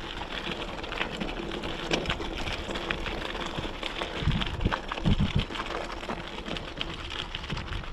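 Mountain bike tyres rolling and crunching over a loose gravel trail, with a constant crackle of small stones and a light rattle from the bike, and a few low thumps a little past the middle.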